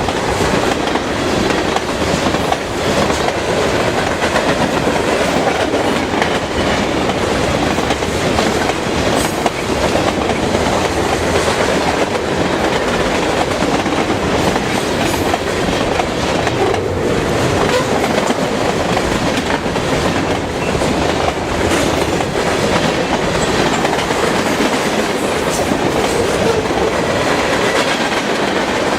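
Long CSX freight train's cars rolling steadily past, wheels clicking over the rail joints.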